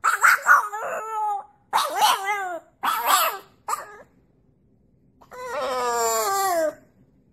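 French bulldog howling: a run of short wavering howls in the first four seconds, then after a short pause one longer howl that falls in pitch as it ends.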